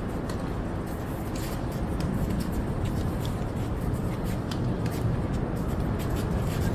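Tennis racquets striking the ball in a doubles rally: a string of short sharp pops, roughly one every second, over a steady low rumble.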